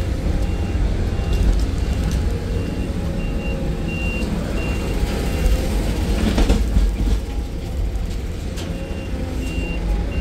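Heavy diesel engine running steadily under a reversing alarm that beeps about three times a second, pausing for a couple of seconds past the middle before starting again. A short hiss about six seconds in.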